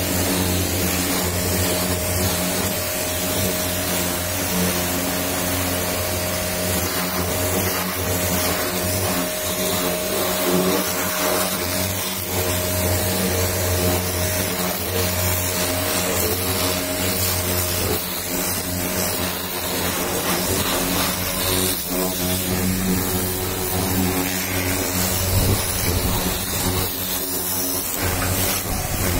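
Pressure washer running steadily: a constant motor hum under the hiss of the water jet spraying against the car's bumper and grille.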